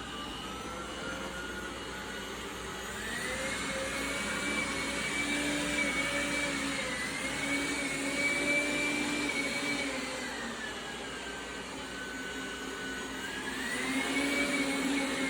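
Dreame Bot L10 Pro robot vacuum running, its fan whine dropping in pitch at the start, climbing back about three seconds in, dropping again around ten seconds and climbing again near the end. This is the suction boost switching on and off by itself on a hard floor, as if the robot were on carpet.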